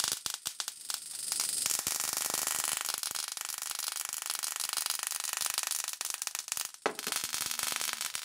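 High-voltage sparks crackling rapidly and continuously from an ignition coil pack output charged through a foil-wrapped CD-spindle capacitor, arcing from a spark-plug probe onto an H4 headlight bulb. The crackle thickens about a second in and dips briefly near the end.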